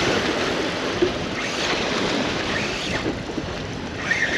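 Surf washing and wind rushing over the microphone, a steady noisy hiss, with one short sharp click about a second in.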